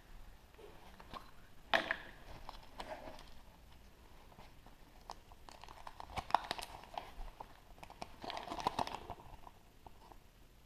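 Hands unwrapping and opening a chocolate surprise egg: crinkling of the foil wrapper with small cracks and clicks in several short spells.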